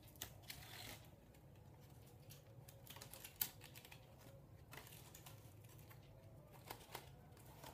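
Faint, scattered clicks and rustling of a Korean paper folding fan with wooden ribs as it is opened out and handled, with one slightly louder click about three and a half seconds in.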